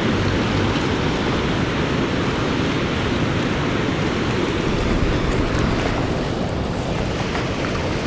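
Steady rush of water pouring through a large dam spillway.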